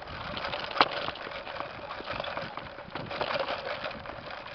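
Camera handling noise: a steady rustle of the microphone rubbing against knit fabric, with many small clicks and one sharp knock a little under a second in.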